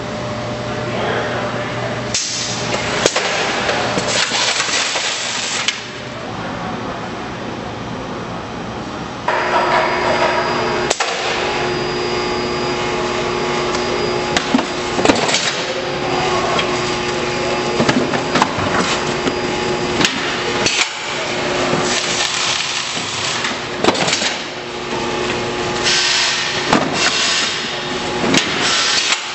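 A BEL 252 case-sealing machine runs with a steady mechanical hum that gets louder about nine seconds in. Over it, a cardboard box is folded and handled, giving scattered sharp knocks and rustling.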